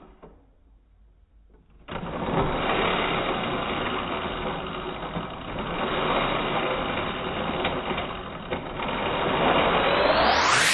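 A countertop blender switches on about two seconds in and runs steadily, blending a smoothie with ice. Its whine rises in pitch near the end as the motor speeds up.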